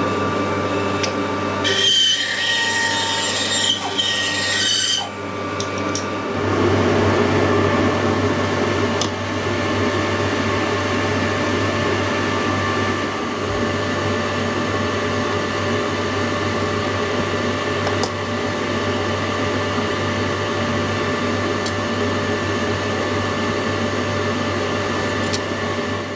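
Workshop power tool running steadily, with a harsher, higher hiss for a few seconds about two seconds in.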